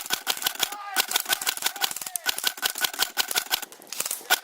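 Rapid airsoft gunfire: a fast, steady string of sharp clacks, about eight to ten a second, with a brief break about a second in.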